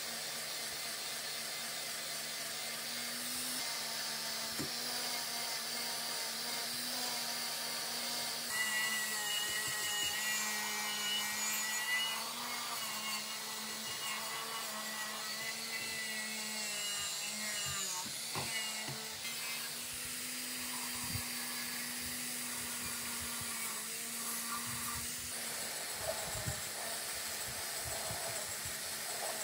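Electric angle grinder running with an abrasive disc, grinding rust and old paint off metal parts. A steady motor whine runs throughout, with a shifting, higher scraping from the disc on metal, loudest through the middle of the stretch.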